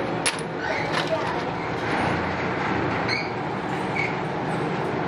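Steady running hum of workshop machinery, with a sharp metallic clink just after the start and voices in the background.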